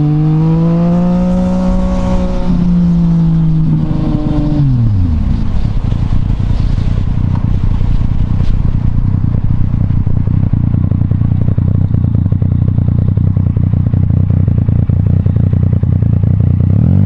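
Yamaha MT-09 inline-three engine pulling with rising revs, then the throttle is closed about four and a half seconds in and the engine note drops steeply. The rest is a low, uneven rumble of the bike rolling at low revs, with the engine note starting to climb again right at the end.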